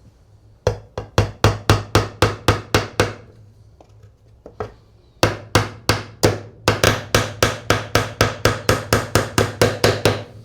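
A hammer striking in quick, even blows, about four a second: one run of roughly a dozen, a pause of about two seconds, then a longer run of about twenty.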